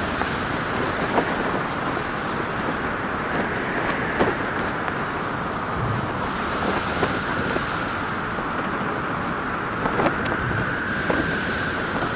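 Steady wind blowing, with a whistling tone that drifts slowly up and down in pitch and a few light clicks.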